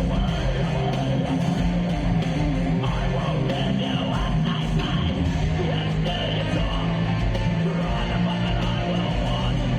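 Heavy metal band playing live and loud: distorted electric guitars, bass and pounding drums in a dense, unbroken wall of sound.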